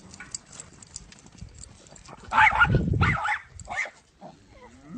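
An animal's short, loud calls, two or three in quick succession a little after halfway through, with faint clicks before them.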